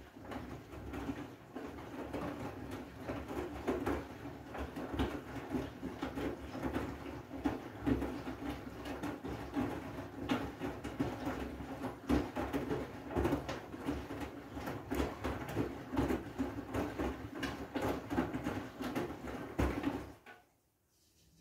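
Front-loading washing machine drum turning a wet load of mixed laundry, with the clothes and water sloshing and flopping in a dense, uneven patter. The tumbling stops abruptly about twenty seconds in.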